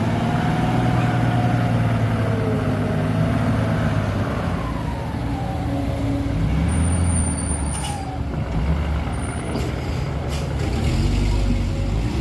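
Heavy dump truck's diesel engine running hard, with a wavering whine over it that falls in pitch midway. A few short, sharp sounds come near the end.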